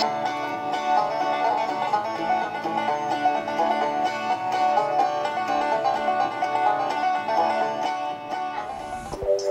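Background music: an upbeat tune on plucked strings in a country style. It breaks off near the end as a different piece begins.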